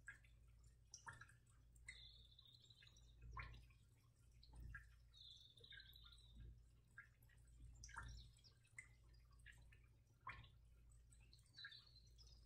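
Near silence: faint room tone with a steady low hum, scattered soft clicks and a few brief faint high chirps.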